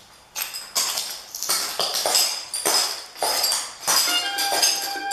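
Footsteps in clogging shoes with metal jingle taps, clicking and jingling on a concrete floor at a walking pace, about three steps a second. Near the end, music with plucked strings starts.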